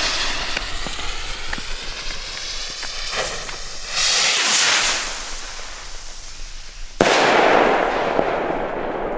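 Keller "The Face 3" skull-head firework rocket: hissing at first, a louder whoosh about four seconds in as it shoots off in a fountain of sparks, then a sharp bang about seven seconds in as it bursts into stars, the noise dying away over the next two seconds.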